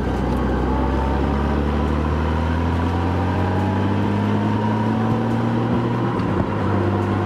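Honda GL1800 Goldwing's six-cylinder engine running under way with wind and road noise. Its pitch climbs slowly as the bike gathers speed and dips briefly about six seconds in.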